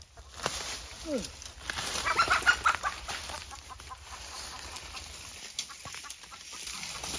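Chicken squawking and clucking in alarm, a short burst of calls about two seconds in, while it is being chased. Footsteps and rustling in dry bamboo leaves.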